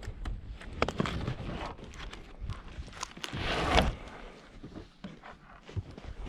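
Irregular footsteps with scattered sharp clicks and knocks, and a brief louder, noisier stretch a little past the middle.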